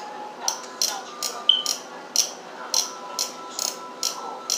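Sharp clicks repeating irregularly, two or three a second, over a faint steady hum, with a brief high beep about a second and a half in.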